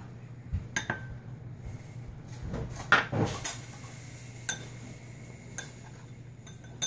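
Small glass bowls and a metal spoon clinking and knocking on a stone countertop as seasonings are tipped together and stirred into a paste. The clinks come in scattered single strikes over a faint, steady low hum.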